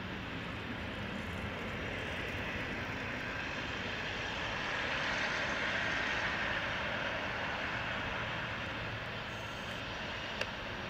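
Jet engine noise from a Boeing 777-300ER's two GE90-115B turbofans as the airliner moves along the runway past the listener. It is a steady rushing sound that grows louder about halfway through as the engines pass, then eases off.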